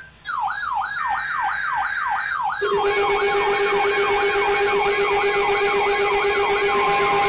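Electronic siren tones: a rapid falling wail repeating about three to four times a second. About two and a half seconds in, a steady pulsing low tone and further steady higher tones join it, and the mix of alarms gets louder.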